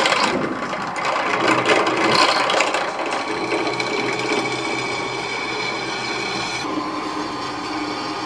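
Drill press running, its twist bit cutting pin holes in the steel handle of a forged knife blade lubricated with cutting oil. A rasping cut at first, then a steady whine.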